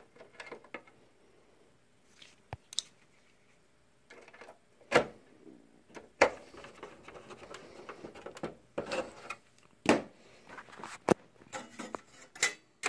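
Hand screwdriver driving screws back into a projector's plastic housing, with scattered sharp clicks and knocks from the tool and from hands handling plastic and sheet-metal parts, coming more often in the second half.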